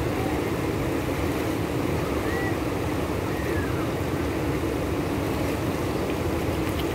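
Steady rushing of a swollen, flooding river, with wind rumbling on the microphone.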